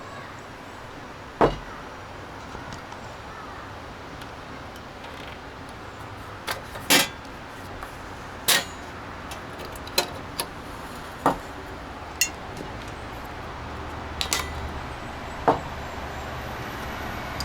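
Sharp clicks and clacks of a portable camping gas stove's canister being swapped: the empty cartridge is taken out and a full one fitted into the stove. About ten separate knocks are spread out over a steady background hiss.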